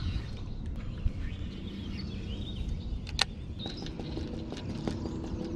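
Small birds chirping over a steady low rumble of outdoor background noise, with one sharp click about three seconds in and a few light ticks near the end.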